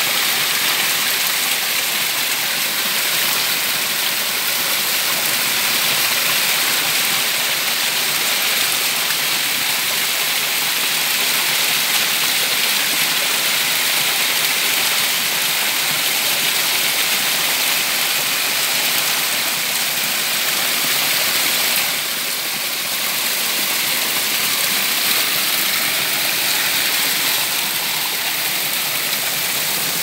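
Small waterfall pouring and splashing down a layered rock face: a steady, loud rush of falling water.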